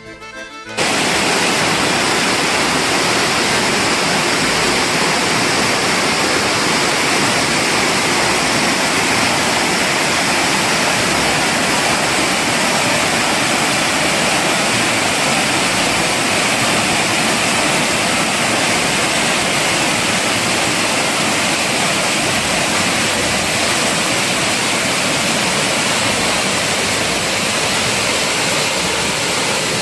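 Montmorency Falls: the loud, steady rush of a large waterfall's falling water. A snatch of accordion music cuts off about a second in, just before the water sound takes over.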